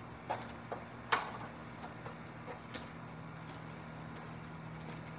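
A few light, sharp clicks and knocks from someone moving about and handling things, the loudest about a second in, over a faint steady low hum.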